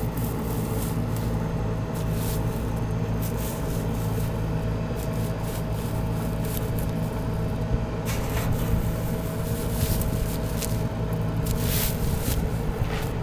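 Steady mechanical hum from a running motor: a low drone with a constant thin whine above it. A few short rustling noises come through about two-thirds of the way in and again near the end.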